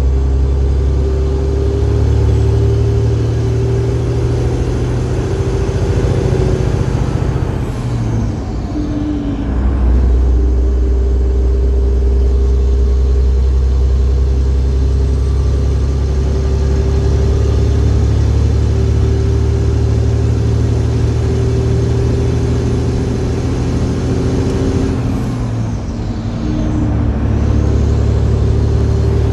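Detroit Diesel Series 60 12.7-litre turbocharged inline-six pulling a truck loaded to about 135,000 lb, running steadily under load. Twice, about eight seconds in and again near the end, it drops off for a gear change, the turbo whine falling away, then picks up and pulls again.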